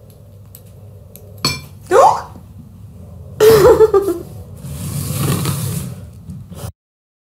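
A metal fork and a glass salt shaker clink against a plate and the tabletop, with short bursts of stifled girlish giggling. The sound cuts off suddenly near the end.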